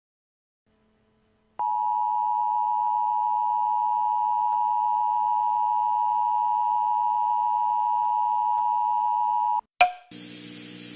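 Emergency Alert System attention signal: a loud, steady high tone starting about a second and a half in and holding for about eight seconds. It cuts off with a click, and a low hum follows before the alert message.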